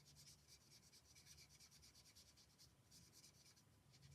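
Faint, quick repeated strokes of a marker nib scratching and rubbing over card as grey is coloured in.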